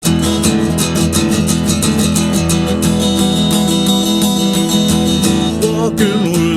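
Song intro led by strummed guitar, rhythmic strokes over steady held notes; near the end a singing voice begins to come in.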